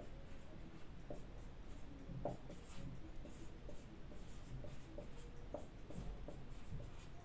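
Marker writing on a whiteboard: a run of short, faint strokes and scratches as letters and bond lines are drawn.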